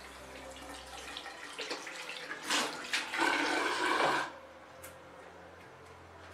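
Tap water running from a bathroom faucet, splashing over hands and into a sink basin. It is loudest from about two and a half seconds in and stops abruptly a little after four seconds.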